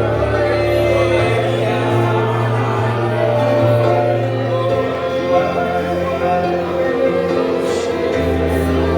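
Worship band playing a slow gospel song with sustained keyboard chords and a bass line, with people singing along.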